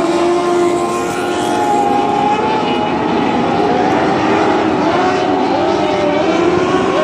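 Several dwarf race cars, small replica racers powered by motorcycle engines, running together at race pace. Their engine notes blend into a loud, steady drone, with several pitches rising and falling as individual cars speed up and slow down.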